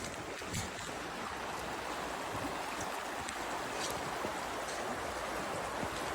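Stream water rushing steadily over rocks, with a few brief splashes and ticks in the flow.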